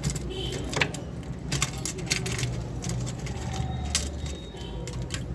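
Irregular light clicks and rattles of small hard toy-gun parts being handled, over a steady low rumble.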